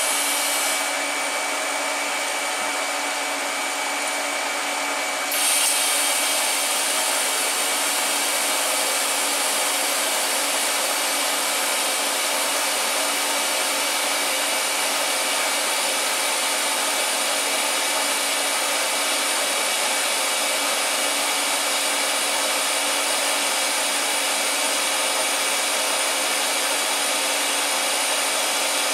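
A steady fan-like hiss with a few faint steady tones runs throughout. About five seconds in, a brighter hiss joins it and stays: the TIG arc burning on the stainless steel flange.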